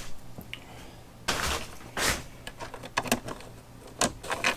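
Hand work on hardware: two short scraping rustles followed by a few sharp clicks and knocks of parts and tools being handled.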